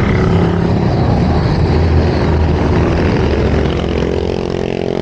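A motor vehicle passing close by on the road, its engine giving a loud low drone that eases off about four seconds in.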